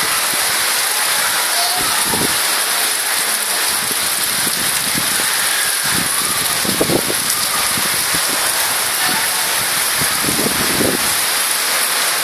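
Rain falling steadily: a dense, even hiss with no let-up, and a few brief low rumbles now and then.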